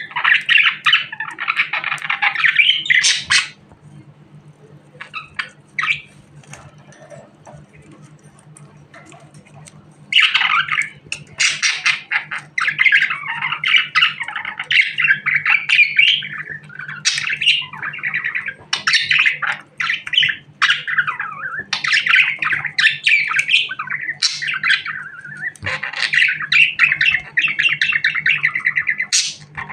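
Budgerigar chattering: a rapid stream of warbling chirps and squawks. A burst of chatter opens, then a few seconds of lull with only single chirps, and from about ten seconds in the warbling runs on almost without a break. A faint steady low hum lies underneath.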